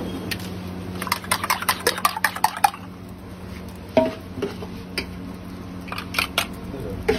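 Metal spoon beating an egg in a small steel cup, a quick run of clinks for about two seconds, then a few separate knocks of spoon and ladle against the cup.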